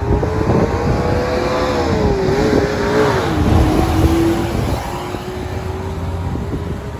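Road traffic heard from a moving open three-wheeler: engine hum and road rumble, with a humming pitch that rises and falls. It is loudest about three to four seconds in, as a Nissan minibus passes close alongside, then settles to a steadier, quieter hum.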